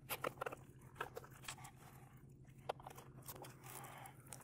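Faint clicks and taps of hands handling clear ballistic gel blocks and setting recovered hollow-point bullets down on a plastic folding table, with a soft rubbing near the end as a block is shifted. A steady low hum runs underneath.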